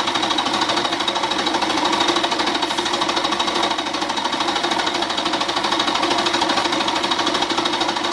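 Budget milling machine running, its cutter taking a cut across a solid cast-iron steam cylinder block to shape a radius, a steady mechanical run with a fast regular pulse.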